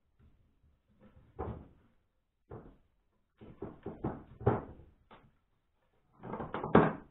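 Ratchet strap being handled on a glued-up octagonal wooden ring: irregular clicks and clacks of the strap's metal ratchet and hooks against the wood. One clack comes about a second and a half in, a quick run of them follows in the middle, and the loudest cluster comes near the end.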